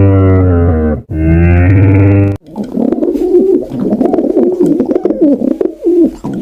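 A cow mooing: a long, low call, broken briefly about a second in, that ends about two and a half seconds in. A softer, warbling animal call follows.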